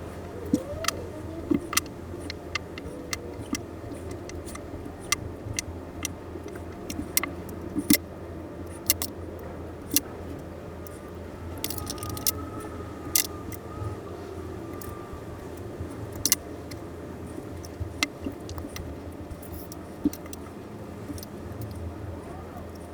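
Small metal watch parts and tools clicking and tapping during disassembly of a Casio analog wristwatch: irregular sharp clicks, often one or two a second, over a steady low hum.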